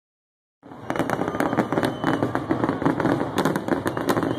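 Aerial fireworks bursting overhead in a dense, rapid run of crackling pops, starting about half a second in.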